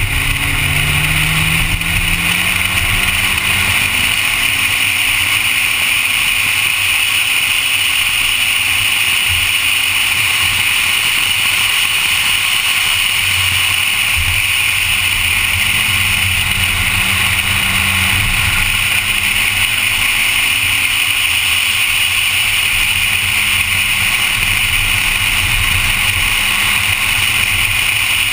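Honda Civic engine running at speed on a track lap, its pitch climbing over the first couple of seconds under acceleration and then holding fairly steady, over a constant hiss of wind and road noise.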